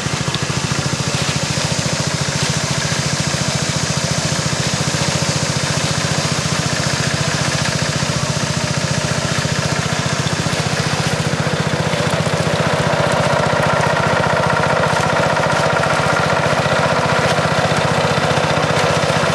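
Small motor driving a bamboo river raft, running steadily with a rapid even chug; it grows a little louder and fuller about two-thirds of the way through.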